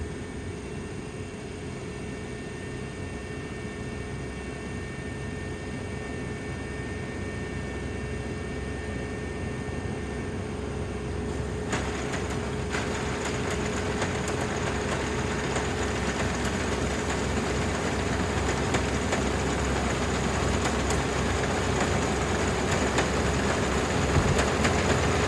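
Dynamax 470 combine harvester running steadily with a constant whine, growing gradually louder. About halfway through, a harsher hiss joins the engine sound and continues.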